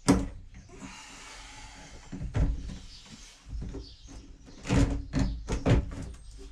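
Plastic knocks and bumps from fitting a corrugated inflow hose into a plastic sump filter box: a sharp click at the start, a short rustle, then several separate knocks, the most clustered about five seconds in.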